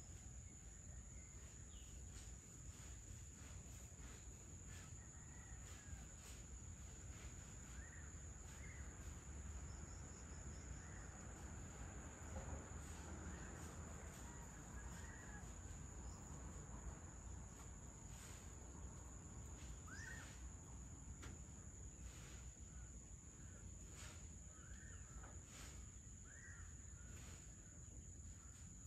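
Faint ambience: a steady high-pitched insect drone, with scattered short bird chirps and a low rumble underneath.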